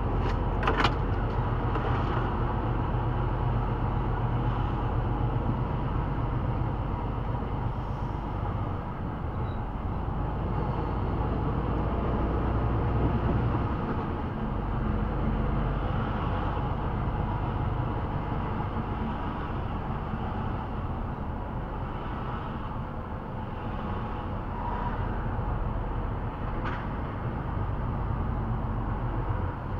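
Engine and road noise of a vehicle driving slowly through town, heard from on board: a steady low rumble. A few sharp clicks come in the first second and another near the end.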